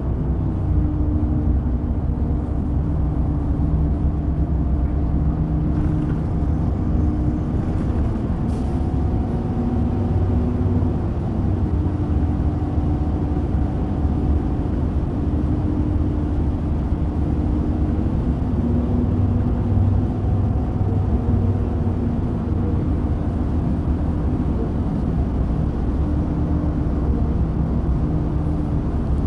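Orion VII NG hybrid bus, a Cummins ISB diesel with BAE Systems HybriDrive, running on its route: a steady low drone with faint humming tones that shift up and down in pitch now and then.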